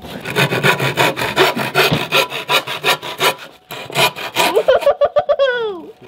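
Hand saw cutting through a thin wooden board in quick back-and-forth strokes, with a short pause partway through. Near the end a drawn-out vocal sound rises and falls over the sawing.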